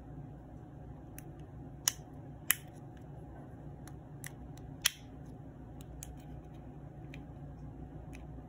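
Small sharp plastic clicks and snaps as a plastic pry tool works open the clear plastic transmitter case of a Toyota key fob. Three louder snaps come about two, two and a half and five seconds in, with fainter clicks between.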